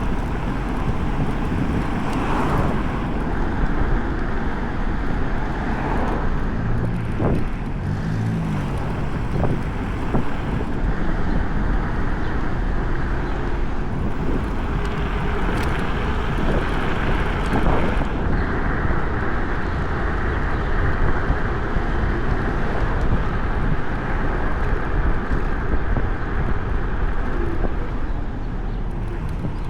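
Steady rush of wind over the microphone and rumble of an electric scooter's tyres on the path while riding, with a few brief knocks from bumps.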